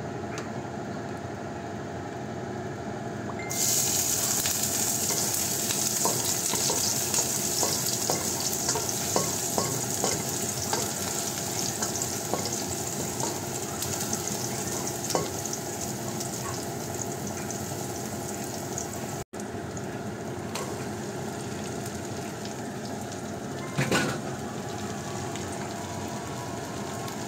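Chopped garlic frying in hot oil in a wok: a sizzle that jumps up sharply about three and a half seconds in and keeps going, with light scrapes and taps of a spatula stirring. After a brief break about two-thirds through, the sizzle goes on lower, with a short knock a few seconds before the end, over a faint steady hum.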